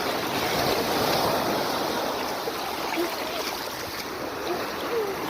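Sea surf washing onto the beach: a steady rushing of waves and water.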